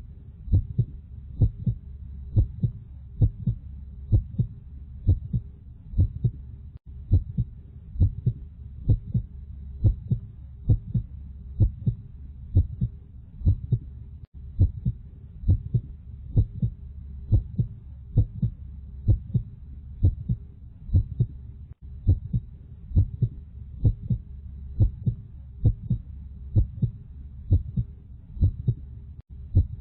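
Heartbeat sound effect: an even, steady rhythm of low thumps, roughly one a second, over a low steady hum.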